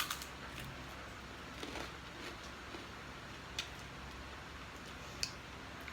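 Faint eating sounds: a few short clicks and mouth noises, spaced a second or two apart, over a low steady hum.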